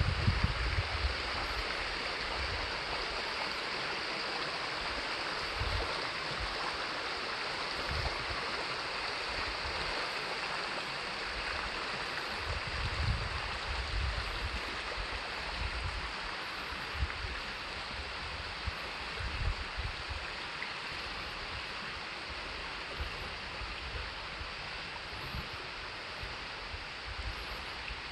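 Mountain stream flowing steadily over rocks, an even rushing of water. Scattered low thumps sound underneath it.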